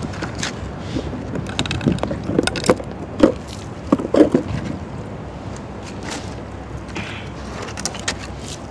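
Wind buffeting the microphone as a steady low rumble, with scattered light knocks and clicks from PVC pipe pieces and tools being handled, the loudest knocks about three to four seconds in.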